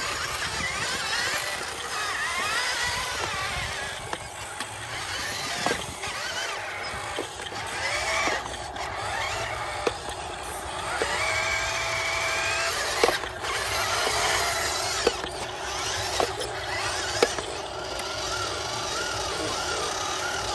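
Electric drive motor and gearbox of a radio-controlled dump truck whining as it drives over dirt. The whine rises and falls in pitch with the throttle, and sharp clicks come every second or so through the second half.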